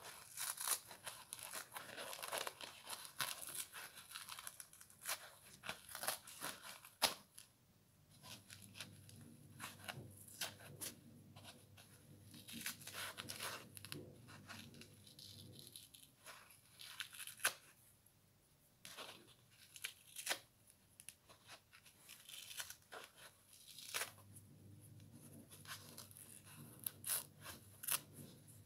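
Scouring-pad layer being plucked off a foam kitchen sponge by hand: irregular scratchy tearing and crackling as the fibres rip away, with sharp little snaps and a quieter pause around the middle.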